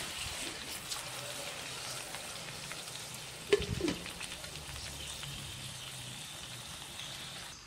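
Blended wet spice paste of shallots, garlic, ginger and turmeric sizzling in hot oil in a metal wok: a steady frying hiss with small crackles. One brief sharp knock about three and a half seconds in is the loudest sound.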